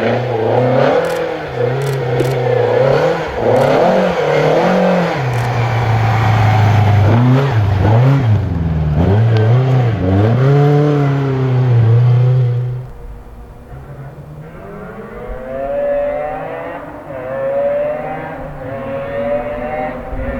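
Historic Ford Escort rally car engines revving hard, the pitch climbing and dropping with each gear change and lift. About thirteen seconds in the sound cuts to a quieter, duller stretch, with an engine rising in pitch again several times.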